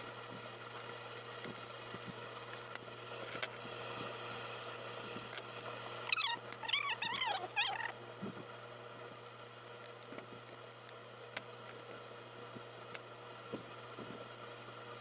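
Faint handling of a paper craft box, with scattered light taps and clicks and a short run of high squeaks about six to eight seconds in, over a low steady hum.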